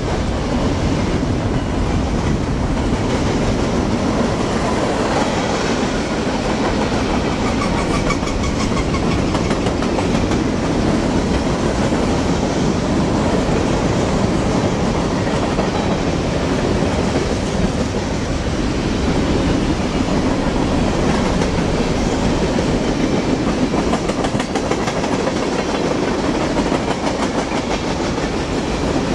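Freight train's cars rolling steadily past: boxcars, covered hoppers and tank cars, with a continuous rumble and the clickety-clack of steel wheels over the rail joints.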